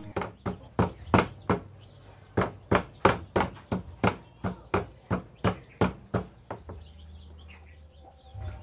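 Crisp snaps, about two or three a second, as water spinach (rau muống) stems are broken by hand; they stop about six and a half seconds in.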